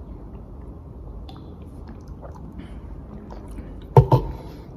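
Quiet sips and swallows from a plastic drink bottle, with faint small clicks over a low hum. About four seconds in, a sharp double knock, the loudest sound.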